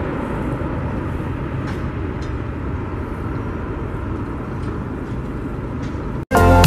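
Boeing 777-300ER's GE90 jet engines giving a steady rumble during its landing rollout. Music cuts in abruptly near the end.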